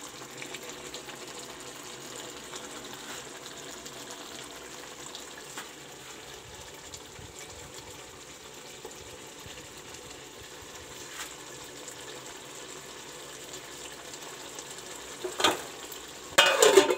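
Potato and pea curry cooking in a metal pot on a gas burner, a steady faint bubbling hiss with the odd small tick. Near the end, a few loud metal clanks.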